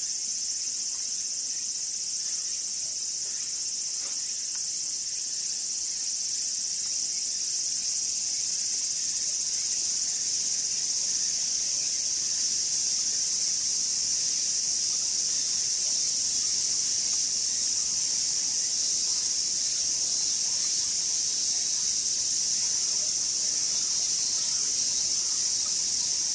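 A steady, high-pitched chorus of insects: one continuous shrill buzz with no breaks, growing a little louder about halfway through.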